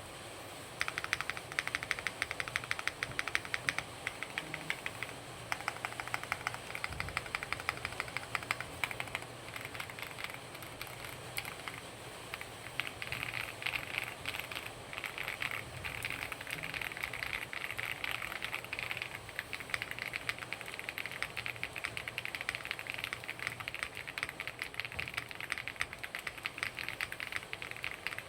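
Fast typing on a WOB Crush80 Reboot all-aluminium TKL mechanical keyboard with Kailh Snow Peak switches: a dense, rapid run of key clacks that starts about a second in.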